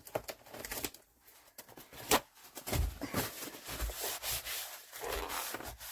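A paper tissue rustling and rubbing over a paper pocket, wiping away excess glue, with a sharp click about two seconds in and a few soft thuds on the work surface.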